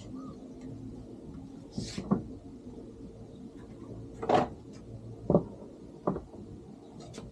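Parts being handled and set down: four or five separate knocks and clacks, with a faint steady hum underneath.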